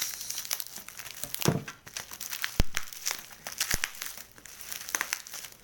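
Plastic packaging and bubble wrap crinkling and rustling as a parcel is pulled open by hand, with two sharp snaps in the middle.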